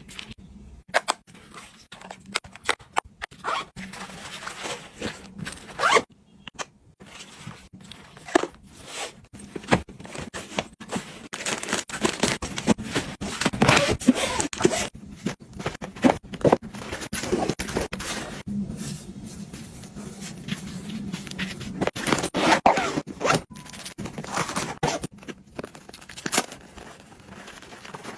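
Close-up handling sounds of items being packed and arranged: irregular clicks and taps mixed with stretches of crinkling and rustling.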